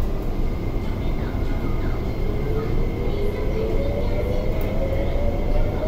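MTR West Rail Line SP1900 (IKK) electric train heard from inside the carriage as it pulls away and accelerates: a steady rumble with a traction motor whine that rises steadily in pitch from about a second and a half in, over a faint steady high tone.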